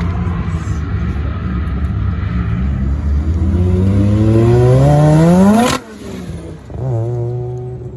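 Mazda RX-7's rotary engine accelerating hard, its pitch climbing steadily to high revs, then cutting off with a sharp crack about three-quarters of the way through as it shifts, and pulling again in the next gear shortly after.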